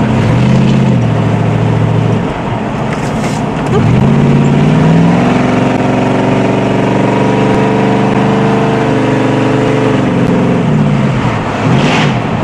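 Dodge Charger's 400 Magnum big-block V8 heard from inside the car under hard driving: the revs climb, drop about two seconds in, then climb again, hold steady for several seconds and fall away near the end, with a steady rush of wind and road noise.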